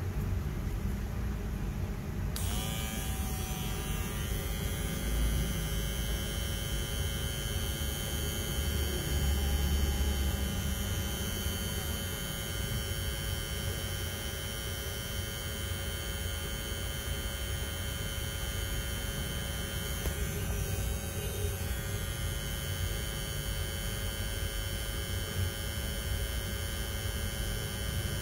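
Cordless L28 Black skin-fade outlining trimmer switched on about two seconds in, its blade motor then running with a steady whine at roughly 5,000 to 6,600 rpm.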